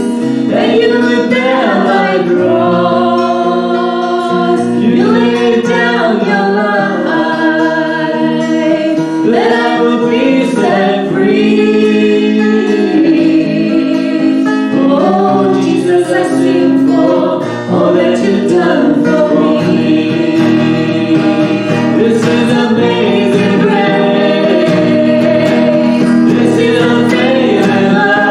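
Contemporary worship music: voices singing over sustained keyboard chords.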